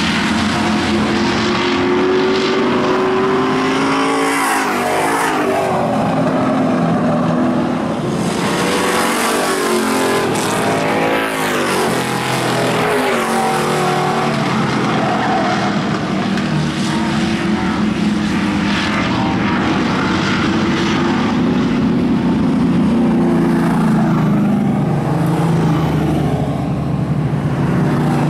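Super Street stock car engines racing on a short oval, several cars at once. Their engine pitch rises and falls again and again as they accelerate and pass.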